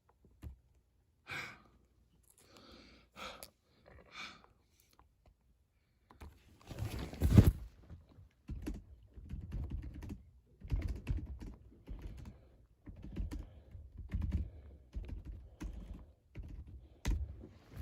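Typing on a computer keyboard: a few scattered key clicks at first, then a steady run of irregular key taps from about six and a half seconds in, with one louder knock about seven and a half seconds in.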